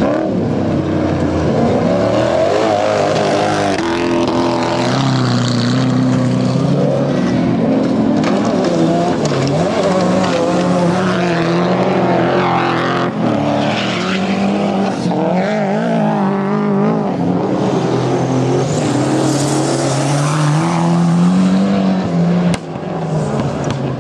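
Several autocross race cars at full throttle on a dirt track. Their engines rev up and drop back again and again with each gear change, with more than one engine heard at once.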